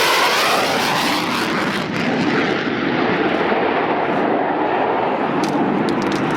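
Jet noise from an F-14 Tomcat's twin engines on a loud high-speed pass, with a sweeping, phasing sound in the first second. The shrill top of the sound falls away after a couple of seconds as the jet moves off.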